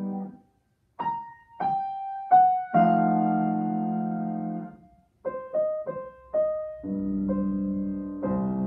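Solo grand piano: a chord dies away and, after a short pause, three single notes are struck one by one before a held chord. After another brief gap comes a run of short detached notes, then two more sustained chords.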